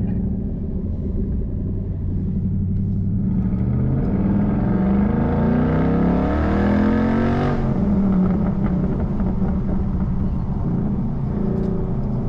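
2012 Ford Boss 302 Mustang's V8 with resonator-deleted side pipes, accelerating with its pitch rising for a few seconds, then dropping suddenly as the throttle comes off about halfway through, and running steadier after that.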